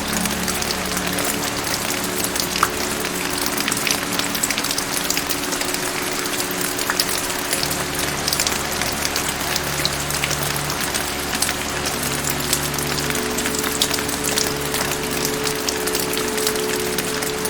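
Steady rain with many sharp individual drop hits, over a soft musical background of held low notes that change every few seconds.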